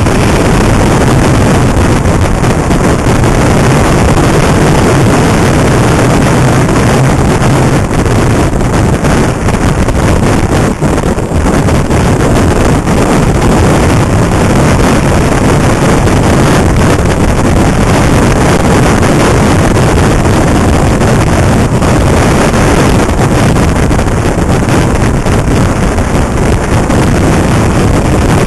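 Steady, loud wind rushing over the microphone of a moving motorcycle, with the bike's engine running underneath.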